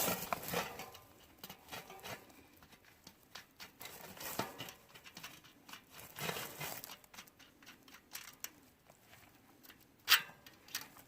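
Hands working on a mountain bike wheel to take out its tubeless valve stem: scattered light clicks, scrapes and rustles, with one sharp, loud click about ten seconds in.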